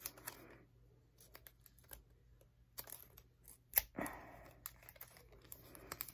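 Faint crinkling and rustling of clear tape and paper being handled and pressed by fingers, with scattered small clicks and one sharper click about four seconds in.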